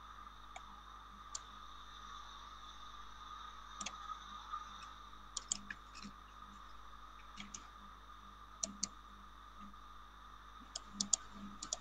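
Faint, irregular computer keyboard keystrokes and mouse clicks, some in quick pairs and a short cluster near the end, over a steady faint electronic whine.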